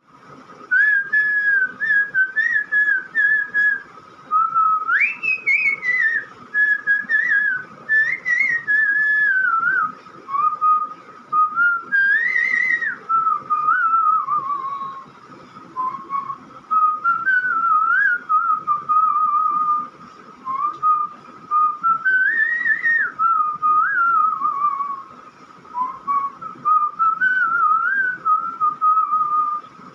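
A person whistling a tune by mouth, a single melody line in phrases of a few seconds with short pauses between them and quick warbling turns in the pitch.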